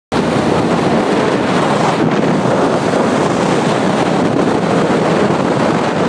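Steady, loud wind noise buffeting the microphone of a camera riding on a motorcycle at road speed.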